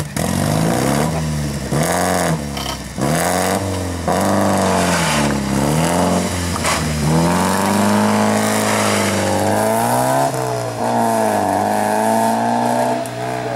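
Alfa Romeo Alfetta GTV rally car's engine revving again and again, its pitch rising and falling, then held high for a few seconds in the middle, as the car works itself free from the bank it has gone into and pulls away.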